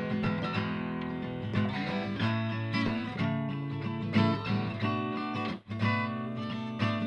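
Background music led by a strummed guitar, with a momentary break about five and a half seconds in.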